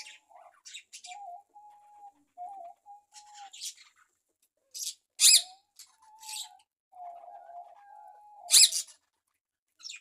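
Aviary birds calling: budgerigars give sharp high chirps, two loud ones about five seconds in and near the end, while a lower, wavering call comes and goes between them.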